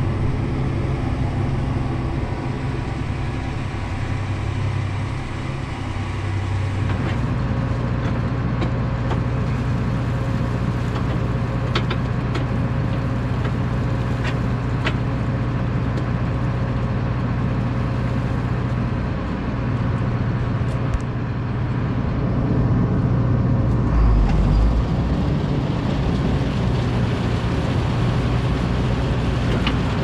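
Large diesel farm machinery engine running steadily, a deep even hum. Its tone shifts slightly about seven seconds in, and there is a brief low rumble about three-quarters of the way through.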